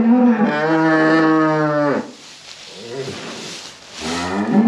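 Holstein cow in labour mooing while her calf is pulled: one long call that holds its pitch and then drops away about two seconds in, and a second call rising in near the end.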